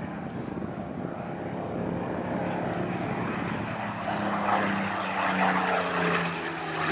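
Supermarine Spitfire Mk IX's Rolls-Royce Merlin V12 engine and propeller droning in flight. The note grows louder as the aircraft approaches and drops slightly in pitch in the second half as it passes.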